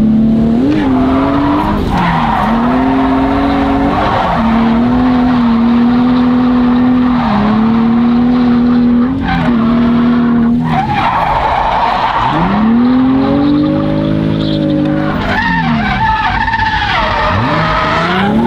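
Nissan 350Z drift car's engine held at high, near-steady revs through long slides, the revs dropping briefly and climbing back several times, with tyres squealing throughout.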